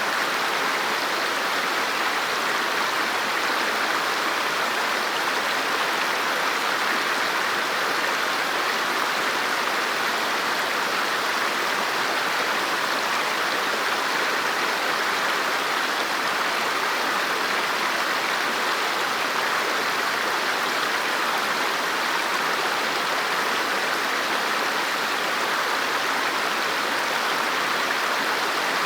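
River water flowing, a steady even rush of moving water.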